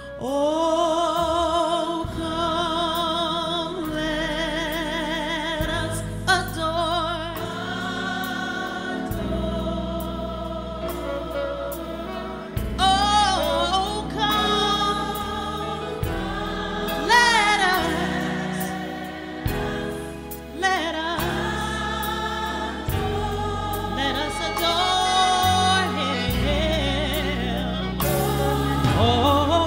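Live gospel music: a woman's lead vocal with long held notes in vibrato and sweeping runs, backed by a choir and held low accompaniment notes that change every couple of seconds.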